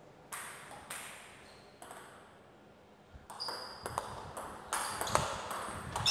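Table tennis ball clicking off bats and table in a rally: a few spaced hits, then a quicker run of clicks from about three seconds in.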